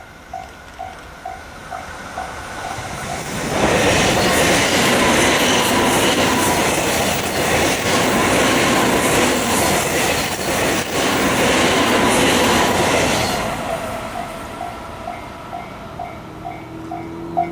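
Japanese level-crossing warning bell ringing about twice a second. A JR East E351 series limited express then passes loudly for about ten seconds, its wheels clacking over rail joints. The crossing bell rings on again as the train goes away.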